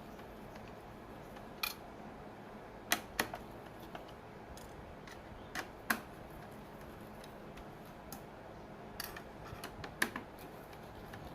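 Irregular sharp clicks and light taps of metal and plastic parts being handled while a CPU heatsink is refitted in a server, some of them in quick pairs.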